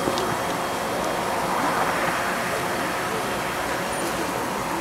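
Steady outdoor crowd ambience: a continuous hum of background noise with faint, indistinct voices of people waiting around.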